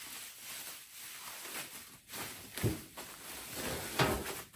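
Bubble wrap and plastic packaging rustling and crinkling as it is handled, with two short thumps, about two and a half and four seconds in.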